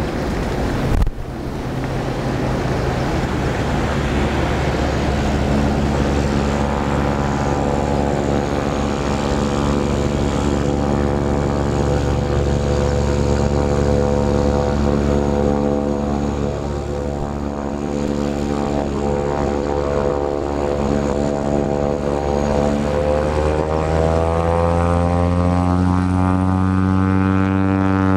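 Cessna Caravan's single PT6A turboprop engine and propeller running with a steady buzzing drone, over wind noise. Near the end the pitch rises steadily as power comes up, as for the start of a takeoff roll.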